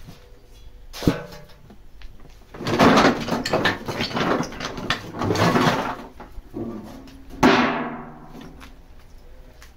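Wood offcuts tipped into a rusty metal garden incinerator bin, clattering against its sides for about three seconds. There is a single knock about a second in, and one loud sharp knock with a short ringing tail near the end.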